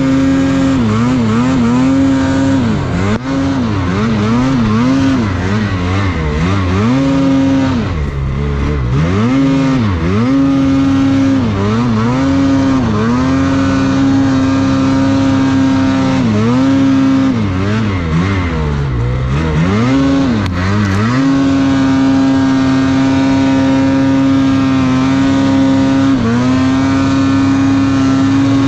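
Snowmobile engine revving while riding through deep powder, the pitch repeatedly dropping and climbing as the throttle is let off and opened again. About two-thirds of the way through, it settles into a steady high-revving run.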